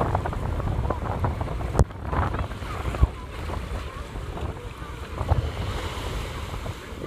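Ocean waves surging on the beach, with wind buffeting the microphone and two sharp knocks about two and three seconds in.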